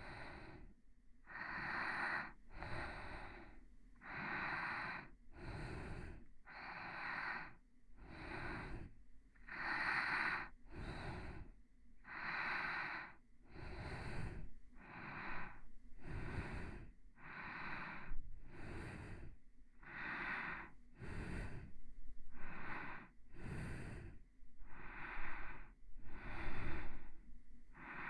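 A person's slow, even breathing close to the microphone: soft in-and-out breaths, each swell about a second long and following one another at a steady pace.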